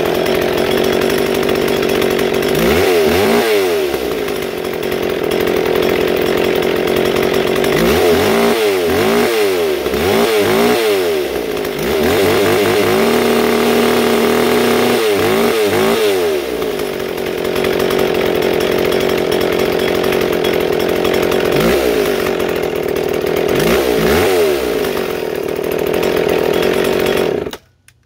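McCulloch Pro Mac 610 two-stroke chainsaw running, revved up and down several times, then cutting off near the end. It now starts and keeps running, the oil-clogged spark arrestor that kept it from starting and idling having been dealt with.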